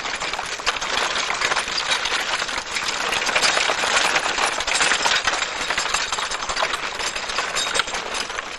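Wooden horse-drawn cart rattling and clattering as it rolls away along the village road, a loud steady clatter of many small knocks.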